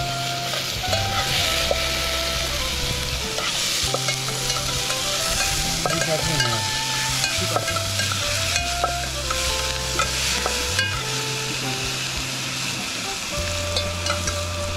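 Chopped onion and greens being mixed by hand in a steel bowl: rustling and light scraping, with small clicks of a spoon against the metal, over a steady hiss. Background music with slow, held notes plays throughout.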